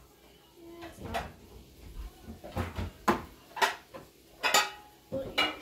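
A metal spoon clinking and scraping against a tin can and a glass bowl as thick condensed soup is scooped out: a string of short, sharp clinks in the second half.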